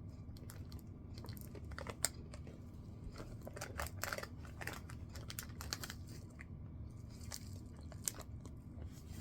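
People chewing and crunching Pop-Tarts Crunchy Poppers, small crunchy strawberry snack bites: faint, irregular crisp crunches.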